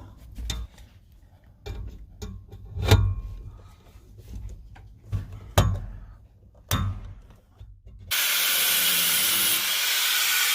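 Hand riveter setting pop rivets through a solid-wood wall panel: a run of clicks and sharp snaps, the loudest about three seconds in. About eight seconds in, a loud steady rushing noise starts abruptly.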